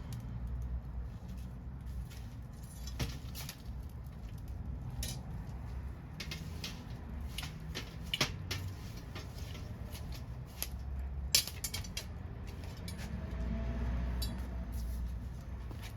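Wood fire burning, with irregular crackles and sharp pops over a low steady rumble; the sharpest snap comes about eleven seconds in.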